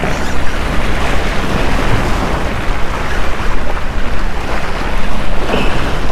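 Small waves splashing and washing over jetty rocks, with wind buffeting the microphone.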